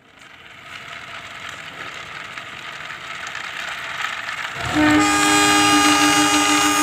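A train's rolling rumble growing steadily louder, then a train horn sounding several tones at once about five seconds in and held.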